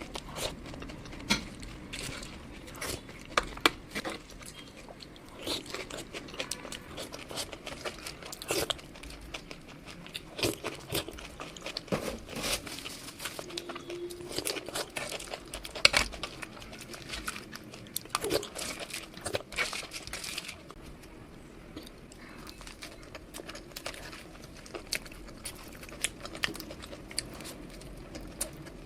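Close-miked eating of junk food: crunchy bites and chewing, with many sharp crackling crunches. The crunches come thickly for most of the time, then thin out toward the end.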